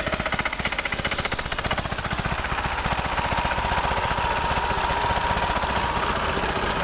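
Tractor diesel engine running steadily with a rapid, even knocking beat, driving a belt-driven sprayer pump. A steady high tone joins in a few seconds in.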